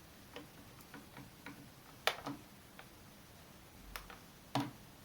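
Irregular small clicks and taps of a plastic toy bicycle siren being handled while its battery cover is opened, with two louder knocks about two seconds in and near the end.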